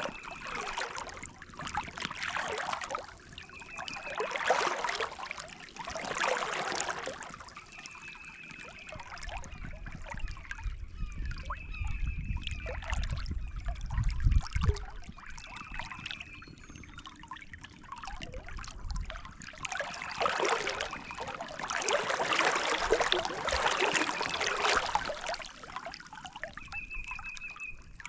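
Creek water trickling steadily, swelling louder for a few seconds at a time, with a short high trilled call repeating every few seconds over it.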